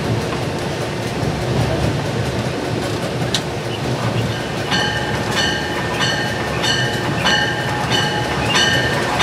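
Steady rumble inside the cab of an EMD F7 diesel locomotive, with its 16-cylinder 567 two-stroke engine, rolling slowly. About four and a half seconds in, the locomotive bell starts ringing, about one and a half strokes a second.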